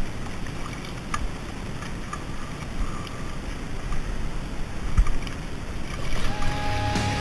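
Water splashing and sloshing in the shallows as a hooked sea trout thrashes at the surface close by, with a few sharp splashes over a steady rush of water and wind noise. Background music starts near the end.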